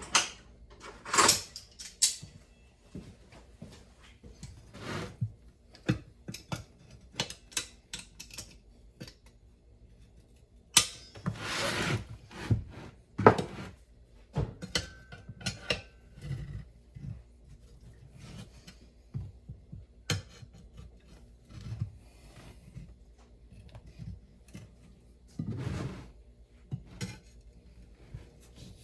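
Metal pry tools and locking pliers clinking, knocking and scraping against a golf cart wheel rim while a tire bead is levered back onto it, with scattered sharp clicks and a few longer scrapes.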